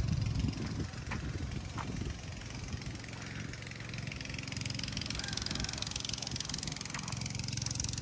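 Sumitomo crawler excavator's diesel engine idling with a steady low hum, dropping a little in level about a second in.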